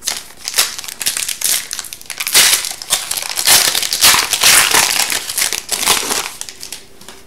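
Foil wrapper of an Upper Deck Series 2 hockey card pack crinkling and tearing as it is ripped open and the cards are pulled out. The sound is loudest in the middle and dies away near the end.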